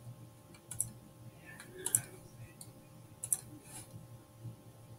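About four faint, sharp clicks at a computer, spread over a few seconds as a slideshow is cleared and advanced to the next slide, over a faint steady electrical hum.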